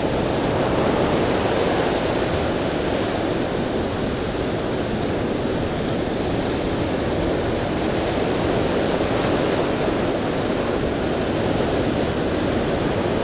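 Ocean surf breaking and washing up the beach, a steady, unbroken rush of noise with no distinct single wave crashes.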